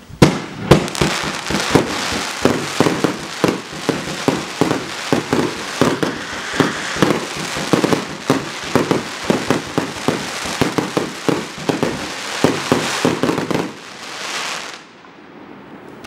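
A 49-shot, 30 mm consumer fireworks cake firing a rapid string of shots and bursts, about three or four a second, over a dense hiss of gold crackling stars. The shots stop about thirteen and a half seconds in, and the crackle trails off over the next second or so.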